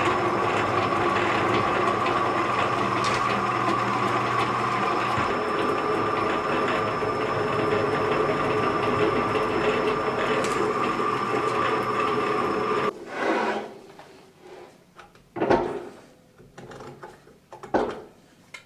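Drill press motor running while drilling a hole through a round metal plate: a steady mechanical hum with a constant whine. It cuts off suddenly near the end, followed by a few knocks.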